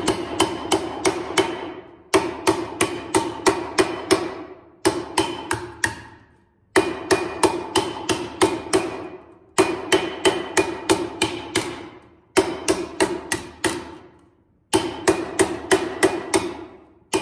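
Plastic mallet striking a pewter cylinder fitted over a steel blowhorn stake, at about three blows a second in short runs of six to eight, each blow leaving a ringing tone. This is the metal being hammered round on the stake to correct its oblong shape.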